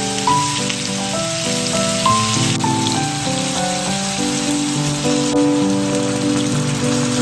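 Background music, a slow melody of held notes moving step by step, over a steady rain-like hiss.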